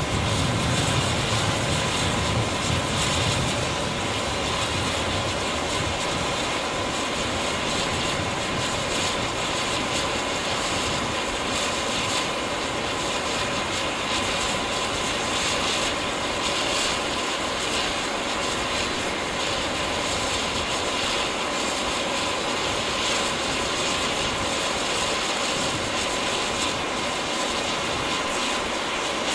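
Steady jet turbine whine and hiss at a parked Boeing KC-46 Pegasus tanker, one constant tone over a rushing noise. A low rumble eases off in the first few seconds.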